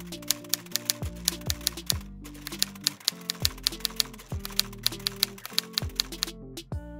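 Typewriter key-clicks sound effect, rapid, over a hip-hop beat with deep falling bass notes. The clicks stop a little after six seconds and the beat runs on alone.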